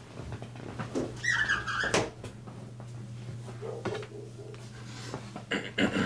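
A window being shut: a short squeak a little over a second in, then a knock as it closes at about two seconds, followed by a few fainter knocks.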